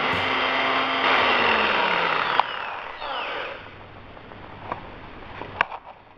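Electric drill with a concrete bit running on a wet glass plate. About two and a half seconds in it is switched off with a click and its motor winds down in pitch. A few light clicks follow.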